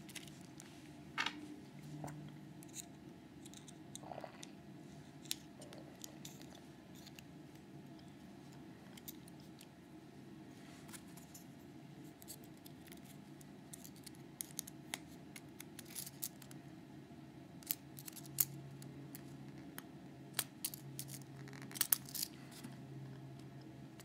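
Faint, scattered small metallic clicks and scrapes of a Metal X6V euro-profile lock cylinder being handled and taken apart by hand, over a low steady hum.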